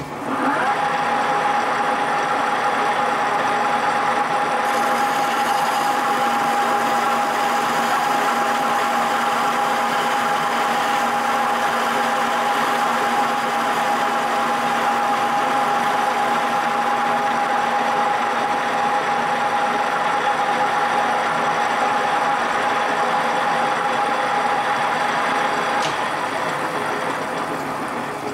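Metal lathe starting up and running steadily while a tangential tool faces the end of a spinning disc, a constant machine noise with a steady high whine through it. The whine stops near the end and the sound eases off a little.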